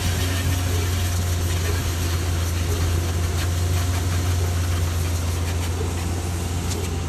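Hot water extraction carpet-cleaning equipment running steadily: a constant low hum under an even rushing hiss.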